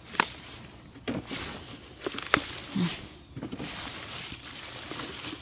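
Pepper plants rustling as ripe peppers are picked by hand, with a few sharp snaps; the loudest come just after the start and a little past two seconds in.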